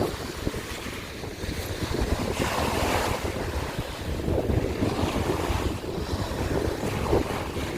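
Small sea waves breaking and washing over a shore of broken scallop shells, surging every couple of seconds, with wind buffeting the microphone.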